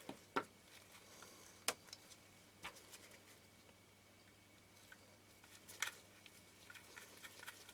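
Faint, scattered metallic clicks and ticks of a small screwdriver and screw as the last screw is driven into the lens mount of a Canon P rangefinder camera, with a few single clicks and a quick cluster of small ticks near the end.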